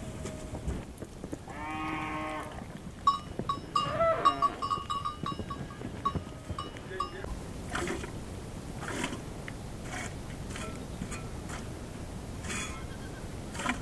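Flock animals bleating: one long call about two seconds in and a wavering second call about four seconds in. Small animal bells tinkle for a few seconds around them. Scattered light knocks and rustles follow.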